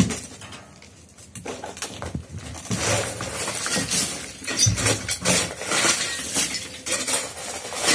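Broken concrete rubble clinking and knocking, a run of irregular sharp strikes that starts about a second and a half in.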